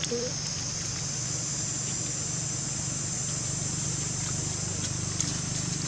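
Steady forest ambience: a continuous high-pitched insect drone over a low steady hum.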